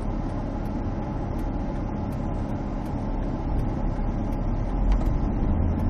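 Steady road and engine rumble heard inside a moving car's cabin, growing a little louder in the second half.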